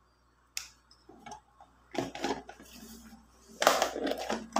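Intermittent clicks, knocks and rustling from handling a steel cooking pot and kitchen utensils while spices are added. A sharp click about half a second in, and the loudest rustling burst near the end.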